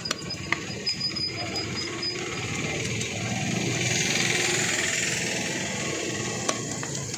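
Heavy cleaver chopping fish on a wooden log block: sharp knocks in the first half-second and another about six and a half seconds in, over steady background noise. A broad hissing rush swells up in the middle and fades.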